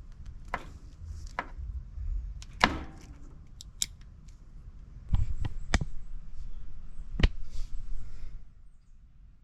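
Scattered clicks and knocks of tools and parts being handled while working on a gas furnace, over a low rumble.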